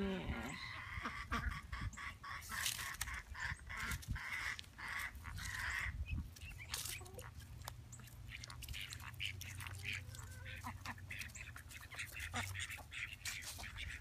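A group of ducks quacking and calling, busiest in the first six seconds and sparser after, with scattered sharp clicks and scratches among them.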